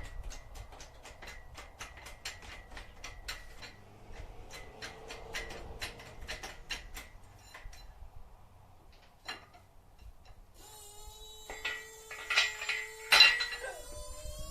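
Fast, even metallic clicking, about four clicks a second, for the first half, then a pause. Near the end come several loud metal clanks with a ringing tone, from the steel parts of a newly assembled engine hoist being handled.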